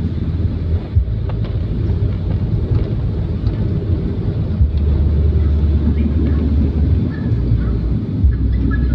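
Steady low rumble of a vehicle driving on a road: road and engine noise with some wind, unbroken throughout.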